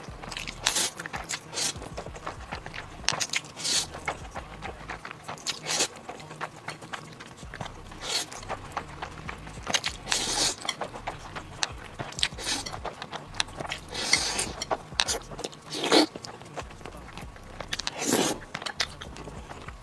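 Close-miked eating: spicy instant noodles slurped and chewed, a string of short wet slurps and smacks every second or so, the loudest two near the end.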